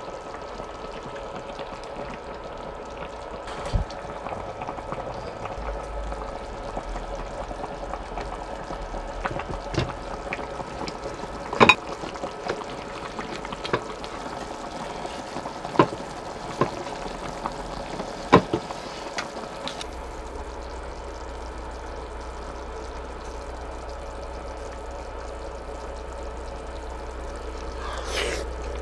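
Food cooking in a pot on the stove: a steady hiss and bubbling, with several sharp clicks of utensils or a lid, the loudest about twelve seconds in.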